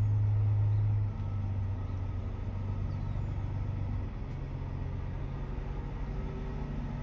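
Semi truck diesel engine idling, heard from inside the cab as a steady low hum that drops in level about a second in.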